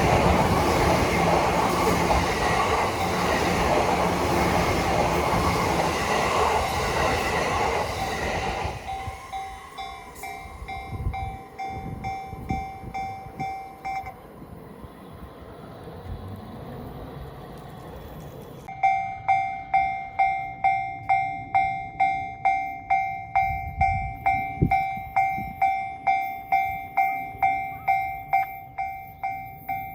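A train runs through a level crossing with a loud rushing rumble for about the first eight seconds. Then a Japanese railway-crossing warning bell rings its 'kan-kan' strikes about twice a second: fainter at first, dropping out for a few seconds, then loud and regular through the second half.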